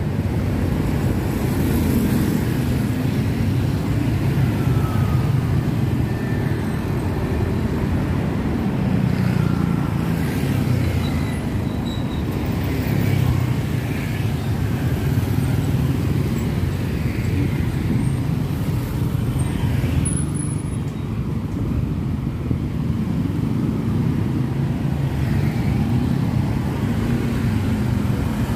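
Road traffic: motor vehicles running and passing by, a steady rumble with engine notes slowly rising and falling.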